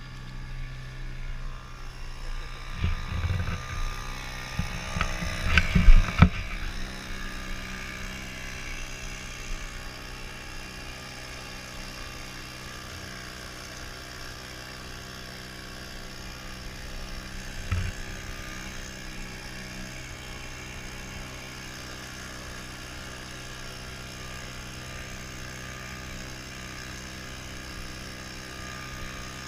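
Small Mariner outboard motor running steadily, pushing the inflatable and its towed canoe through the water. A cluster of loud knocks comes a few seconds in, and a single knock near the middle.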